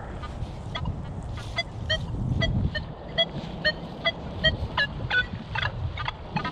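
Nokta Legend metal detector giving a quick run of short pitched target beeps, two to three a second, as the coil sweeps over buried metal, with a low rumble underneath.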